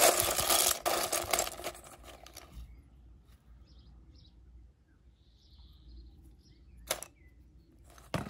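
Plastic toy figures and shredded fragments clattering against a stainless steel bowl as a hand stirs and rummages through them. This lasts for about the first two seconds. After that it is quiet apart from faint high chirps, a sharp click about seven seconds in and another near the end as the bowl is set down on stone.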